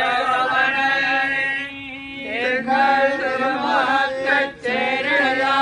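A group of men chanting temple hymns in unison. They hold one steady note for the first couple of seconds, then move through rising and falling phrases, with a brief break about four and a half seconds in.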